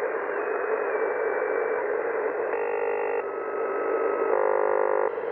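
Static and band noise from the Icom IC-M802 HF marine transceiver's speaker as it is tuned across the low HF bands. A thin carrier whistle steps down in pitch in the first two seconds, and two short buzzy signals come through about halfway and near the end.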